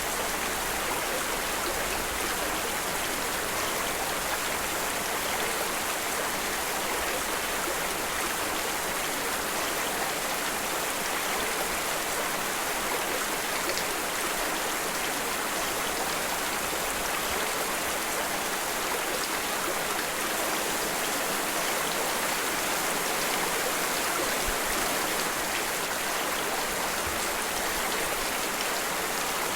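Steady rain and running water: an even, unbroken hiss.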